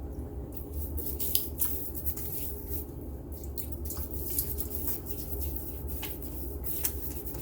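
Wet hands splashing soap bloom water onto a face: a run of irregular wet splashes and drips, over a steady low hum.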